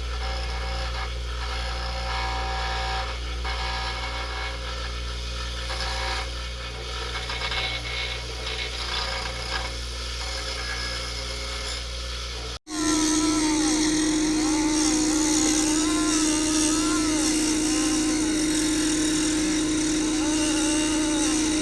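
A power tool running while shaving metal off the lip of a new PTO housing so it will fit the tractor's casting. A steady hum with a deep tone runs about twelve seconds, then after a sudden break a louder steady drone with one strong tone and wavering higher tones takes over.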